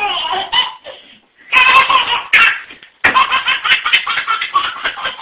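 A baby laughing hard in bursts of rapid giggles. There are short pauses about a second in and just before three seconds, then a long unbroken run of giggles.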